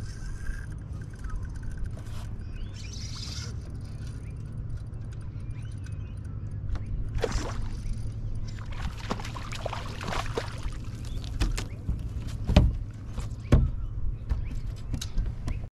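A hooked giant trevally splashing at the water's surface during the fight, over a steady low rumble, with a few sharp knocks near the end.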